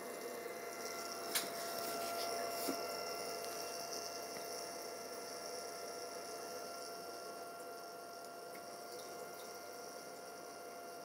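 Steady electrical hum with a faint steady whine, and two light clicks, about one and a half and nearly three seconds in.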